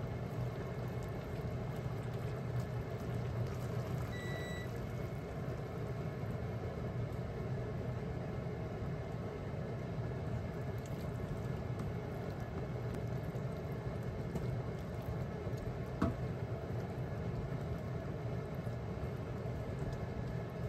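Sauce simmering in a wok on an induction hob, over a steady low hum. A short electronic beep sounds about four seconds in, and a single sharp tap comes near the end.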